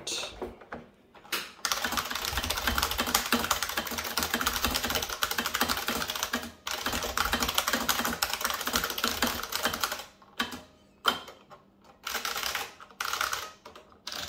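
IBM Model F AT keyboard's buckling-spring switches under fast, continuous typing, a dense run of sharp key clicks. After about ten seconds the typing thins out to short bursts and single key presses.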